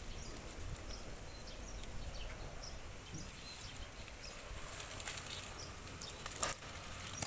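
Scuffling and handling noise from a goat held down on the ground for slaughter, with a couple of sharp knocks about six and a half seconds in.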